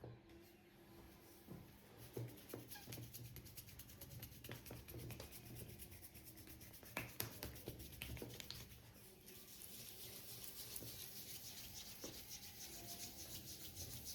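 Faint massage strokes rubbing over the skin of a back, a quick, fine scratchy texture throughout. A few sharper clicks come around the middle, and the rubbing turns brighter and hissier in the second half.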